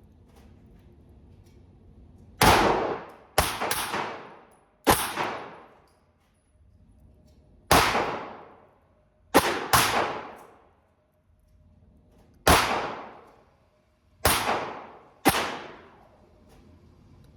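Handgun shots, about ten in all, fired singly and in quick pairs a few seconds apart. Each shot trails off over about a second.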